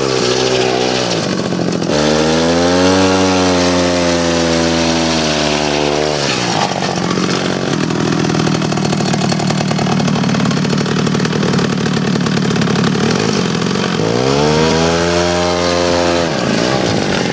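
Two-stroke chainsaw engine powering a drift trike, revving up in long pulls and dropping back to a lower running speed between them: a rev ends about a second in, a long rev runs through the first third, and another comes near the end.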